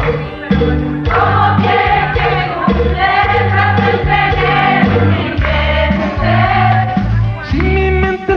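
Live grupera band music in an instrumental break between sung verses: electric bass and drums under a held, sustained melody line.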